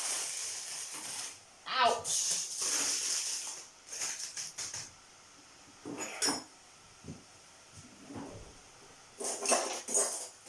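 Serving utensils clinking and scraping against dishes and pans as spaghetti is served, with a run of quick clicks near the end. A hiss runs through the first few seconds.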